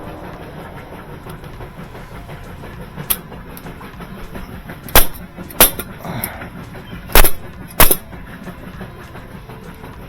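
Five sharp knocks over a steady low hum: one about three seconds in, then two loud pairs around five and seven seconds in, with a brief scrape between them.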